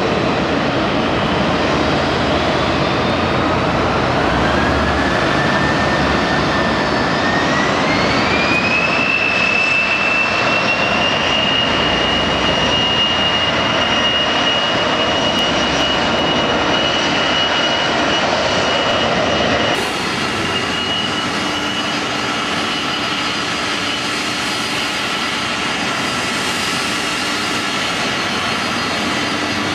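Boeing 737 jet engines spooling up, a whine that rises over a few seconds and then holds steady over a broad rush of jet noise, as at takeoff thrust. About two-thirds of the way through, it switches abruptly to the steadier, slightly quieter engine whine of a taxiing Boeing 767.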